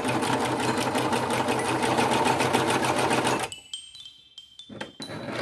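Serger stitching fast with a rapid, even stitch rhythm, test-running with its newly replaced feed dog, then stopping suddenly about three and a half seconds in, followed by a few faint handling clicks and rustles.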